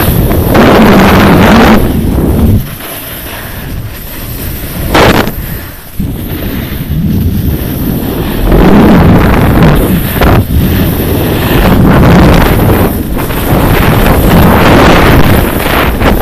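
Wind buffeting the microphone of a camera moving fast downhill on a ski slope. It eases off for a few seconds about a fifth of the way in, with one brief loud gust in that lull, then picks back up.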